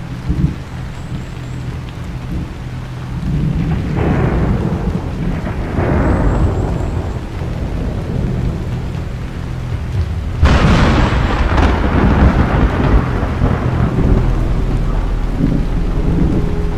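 Thunderstorm: steady rain with rolling thunder. The rumble swells about four and six seconds in, and a loud, sudden thunderclap comes about ten seconds in.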